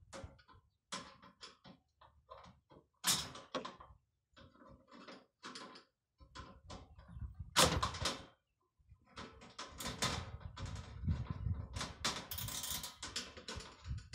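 Galvanized sheet-steel nesting box panels and small screws and nuts knocking, clicking and rattling as they are handled and fitted together by hand. The knocks come irregularly, with louder clatters about 3 and 7.5 seconds in and quicker clicking over the last few seconds.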